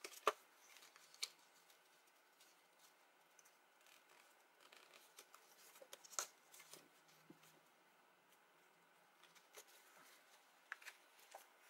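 Faint, scattered crackles and taps of stiff cardstock being handled and folded along its scored lines, with a few sharper snaps of the card, the clearest about a second in and about six seconds in.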